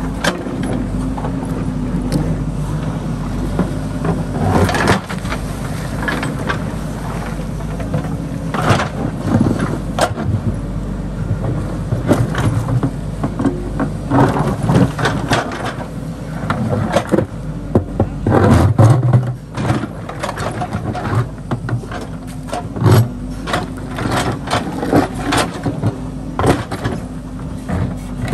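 JCB backhoe loader's diesel engine running steadily under load while the backhoe bucket digs through river stones and gravel, with repeated knocks and scrapes of rock against the steel bucket.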